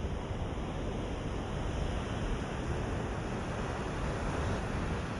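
Ocean waves washing on the shore, a steady surf noise that swells slightly about halfway through.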